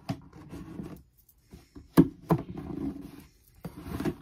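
Handling noises: a scatter of sharp knocks and rustles as objects are moved about close to the microphone, the loudest a hard knock about two seconds in, quickly followed by a second.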